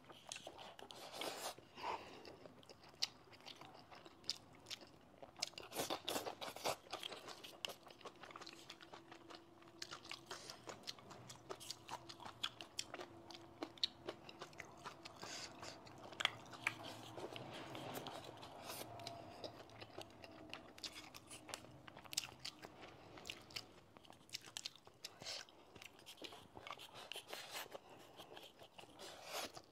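A person chewing and crunching food, close-miked, with many small sharp clicks and smacks of the mouth.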